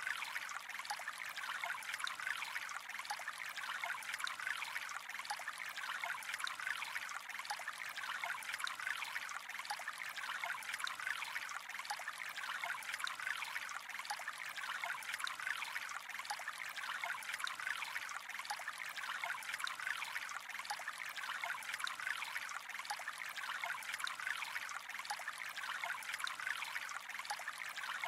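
Gently flowing water, a steady trickle that runs on without pauses.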